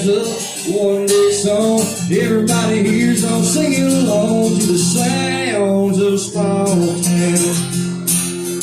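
Country song music: acoustic guitar with a gliding melody line over it.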